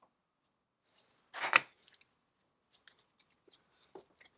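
Metal blower parts handled by hand: a short, loud metal scrape about a second and a half in, then light clicks and taps as the steel rotor and flat sliding vane of an antique Hypress rotary blower are worked at its cast housing.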